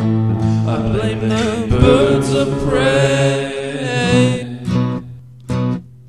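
Acoustic guitar playing, with a wordless sung vocal line held with vibrato from about one second in until about four and a half seconds.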